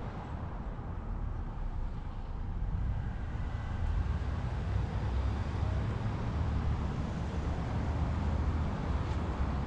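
Street traffic: vehicles driving past with a low rumble of engines and tyres that grows louder about four seconds in.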